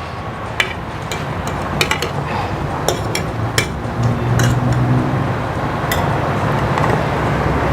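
Kitchen utensils clinking and knocking against a plate and steamer pot as steamed vegetables are moved onto the plate: about ten sharp, irregular clinks over a steady low hum.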